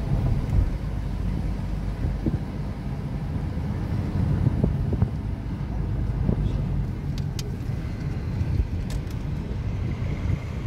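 Steady low rumble of a car driving along a city street, heard from inside the car, with a few faint ticks.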